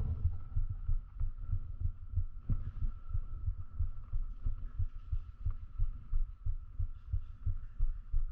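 Rapid muffled low thumps, several a second and uneven, over a faint steady high tone.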